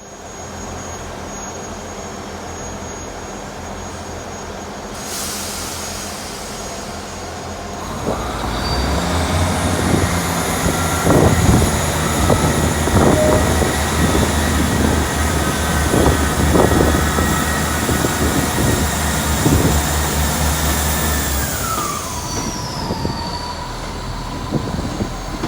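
Train at a station platform: a steady low engine hum, then from about eight seconds in a much louder rumble of wheels on rail with repeated thuds and high whining tones. Near the end the whine glides down in pitch.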